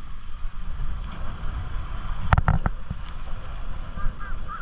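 Wind rumbling steadily on the microphone at the water's edge. A few sharp knocks come a little over two seconds in, and faint distant voices are heard near the end.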